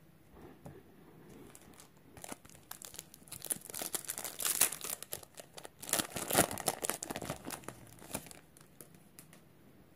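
Foil wrapper of a Magic: The Gathering Ikoria booster pack crinkling and tearing as it is ripped open by hand and the cards are pulled out. The crackling starts about two seconds in, is loudest in the middle, and dies down about a second and a half before the end.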